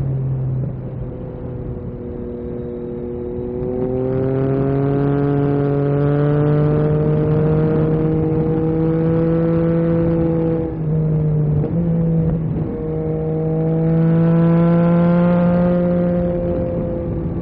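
Yamaha MT-09 SP's three-cylinder engine through an Akrapovic carbon racing exhaust, pulling under acceleration with its pitch climbing steadily. The note breaks briefly a few times past the middle, then climbs again before easing off near the end.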